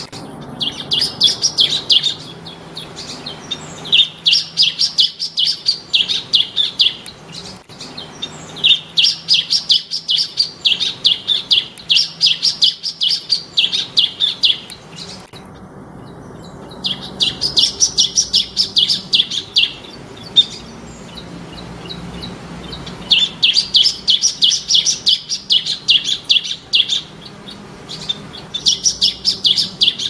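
Bar-winged prinia (ciblek) singing: phrases of rapid, high, repeated notes, about four a second, each phrase lasting two to three seconds, with short pauses between them.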